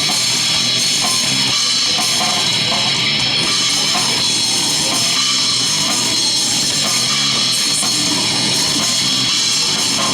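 Rock band playing live: electric guitar and drum kit, loud and unbroken.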